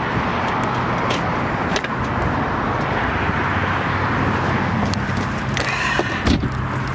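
Car engine idling steadily with a few clicks, and a car door shutting near the end, after which the sound is muffled and quieter.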